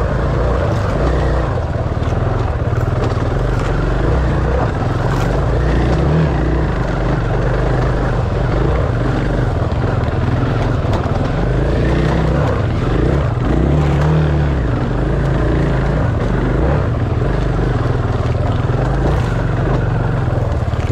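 Off-road enduro motorcycle engine running continuously.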